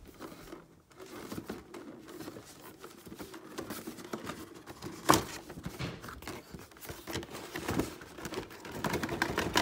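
Cardboard S.H. MonsterArts figure box being handled and opened: irregular rustling, crinkling and scraping of the packaging, with a sharp click about halfway through and more small clicks near the end.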